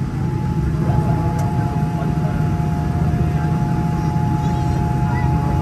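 Cabin noise inside a Boeing 787-10 airliner with its jet engines running: a steady low rumble with a steady high whine, a second, slightly lower whine coming in about a second in.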